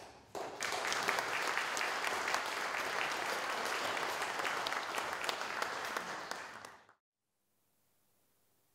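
Audience applauding: dense clapping for about six seconds that cuts off abruptly to near silence.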